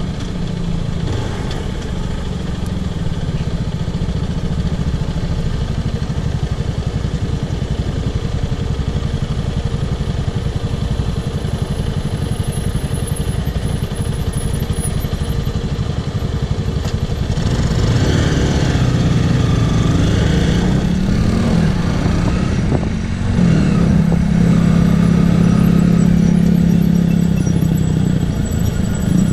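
Zontes X1 350's liquid-cooled single-cylinder engine running under way. About two-thirds of the way through it gets louder, its revs climb, and then it holds a steady higher note.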